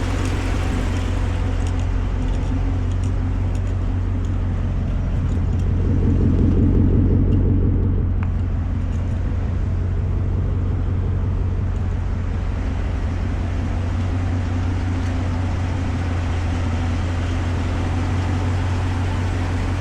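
Freshly rebuilt Jeep SRT8 Hemi V8 running steadily with a low, even drone that swells a little about six to eight seconds in. The owner says it is holding normal temperature and not overheating.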